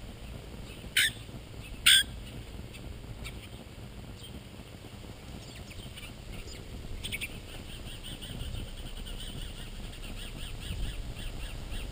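Birds at a feeder: two loud, harsh calls about a second apart near the start, then from about seven seconds in a quick run of high chirps, roughly three or four a second.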